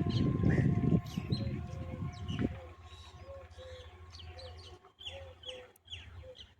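A low rumble cuts off about a second in and fades away. Then small birds chirp and call, many short notes together, with a repeated short lower call among them.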